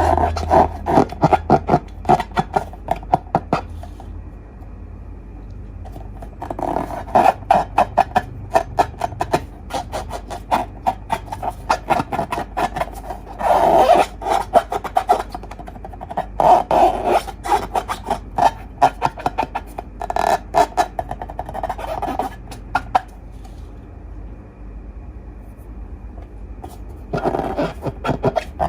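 Slime being squeezed and worked by hand, giving runs of rapid sticky clicks and crackles several seconds long, with two pauses of a few seconds in between.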